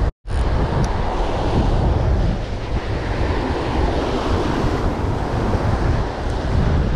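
Surf breaking and washing up the beach, with strong wind buffeting the microphone.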